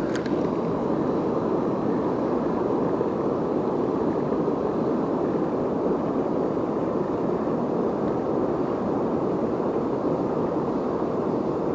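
Fast-flowing river water rushing steadily, with a light click right at the start.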